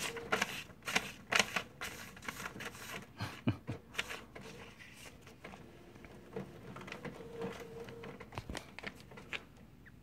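All-in-one printer working: irregular clicks and clacks from its paper feed and print mechanism, with a faint motor hum that comes and goes.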